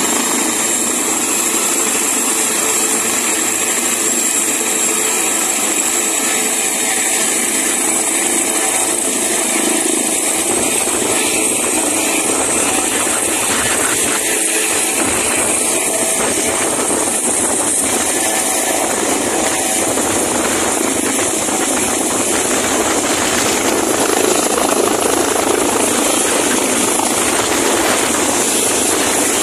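Airbus H145 helicopter's twin turboshaft engines and rotors running, with a steady high turbine whine over dense rotor and exhaust noise. It grows a little louder near the end as the helicopter lifts off.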